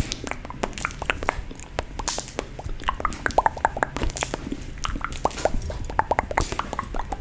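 Close-up ASMR mouth sounds: quick, irregular clicks and pops made with the mouth, several a second.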